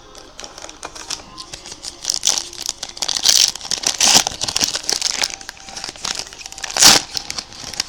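Plastic trading-card packaging being crinkled and torn open, with irregular crackling and sharp clicks as the cards are handled, and one louder crinkle near the end.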